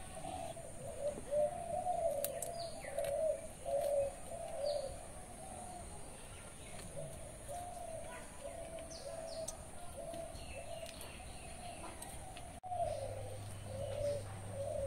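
Doves cooing over and over in a low, warbling call, with short high chirps from small birds now and then.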